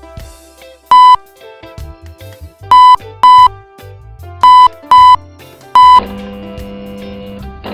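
Background music broken by six loud, short electronic beeps, each about a third of a second at one steady pitch: one, then two pairs, then one more. After the last beep the music settles into a held chord.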